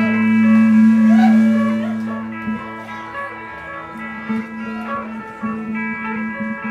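Amplified electric guitars played live: held notes ring out together, then a repeated picked low note starts about four seconds in.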